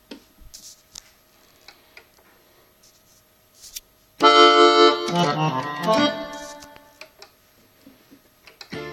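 Yamaha PSR-550 arranger keyboard, a few faint clicks and then a loud held chord that starts suddenly about four seconds in. A few more notes follow and fade away over the next two seconds, and playing starts again right at the end.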